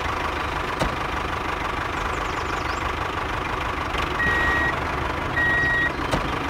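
A tractor engine running steadily at idle. Over it, a reversing alarm beeps twice, evenly spaced, in the last couple of seconds as the tractor backs up.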